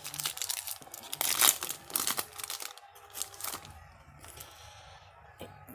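Foil trading-card pack wrapper being torn open and crinkled in the hands: a dense run of sharp crackles, loudest in the first couple of seconds, then quieter and sparser near the end.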